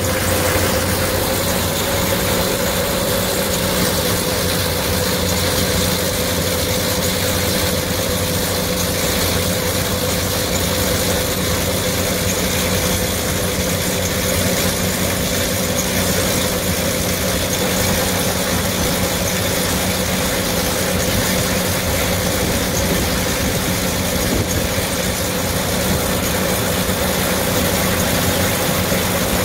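Gleaner R75 combine's diesel engine running at a steady speed, with a steady whine over the engine note, while the unloading auger turns.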